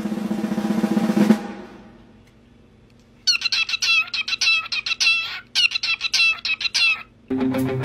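Cockatiel singing a rapid string of high chirping, whistled notes in quick bursts, wings held out. The song is preceded by a buzzing rattle that stops about a second and a half in, and music with a guitar begins near the end.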